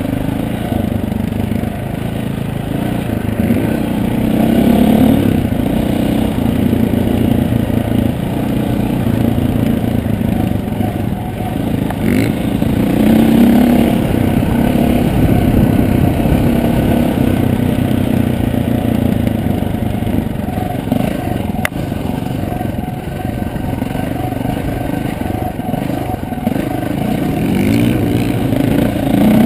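Dirt bike engine ridden hard over rough ground, revving up and falling back again and again as the rider works the throttle.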